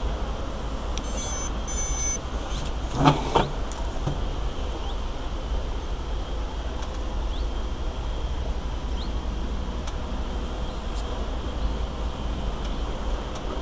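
Quadcopter electronics giving a quick series of high startup beeps about a second in, just after the LiPo battery is plugged in, over a steady low noise. Two sharp knocks follow about three seconds in.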